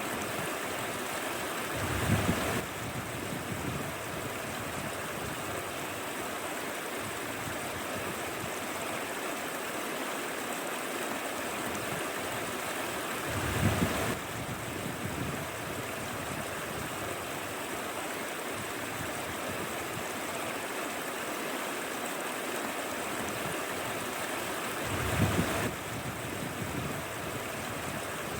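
Mountain stream running: a steady rush of flowing water, with three brief louder swells about eleven seconds apart.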